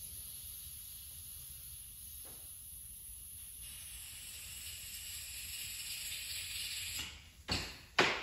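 Steady hiss of butane gas, getting louder about three and a half seconds in. Two sharp clicks near the end are the loudest sounds.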